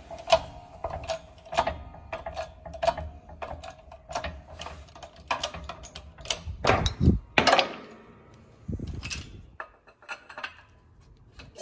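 A 12-ton hydraulic shop press forcing a bronze bush out of a steam locomotive's connecting rod, with a run of metallic clicks about twice a second. Around seven seconds in come louder clunks as the bush comes free.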